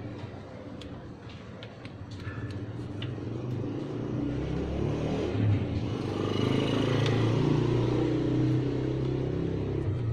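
A motor vehicle engine running, growing louder over a few seconds, holding steady, then easing off near the end, with a few light clicks in the first seconds.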